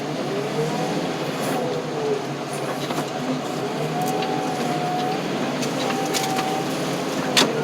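Heavy machine's engine running under work, its pitch rising and falling, with one sharp knock near the end.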